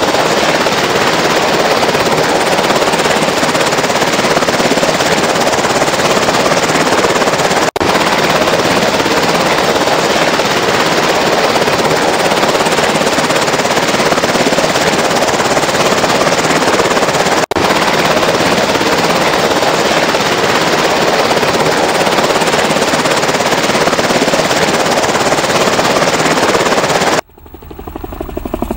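MV-22 Osprey tiltrotor's proprotors and turboshaft engines running loud as it lifts off in helicopter mode and flies over. The sound cuts out briefly twice, and near the end it drops away suddenly and builds up again.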